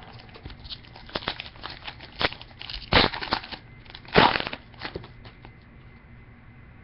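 Trading-card pack wrapper crinkling and tearing and cards being handled, a run of crackly rustles with two louder crinkles about three and four seconds in, settling quieter near the end.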